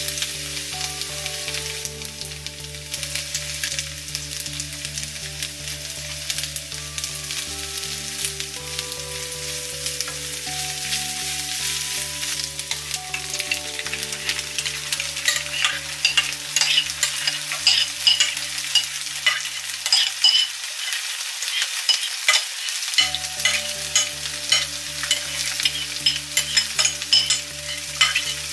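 Tofu cubes frying in oil in a non-stick pan, sizzling steadily while being stirred with a silicone spatula. From about halfway, as a creamy sauce is poured over the hot tofu, the sizzle turns into sharper, louder crackles and pops.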